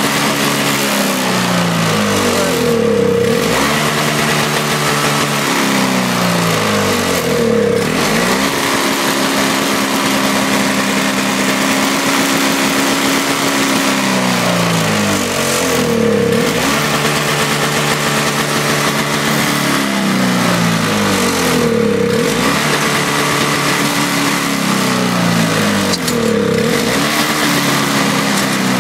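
Toro CCR 2450 snowblower's two-stroke engine running on its own, its speed hunting: it sags and climbs again in waves every few seconds, with a few seconds of steady running in the middle.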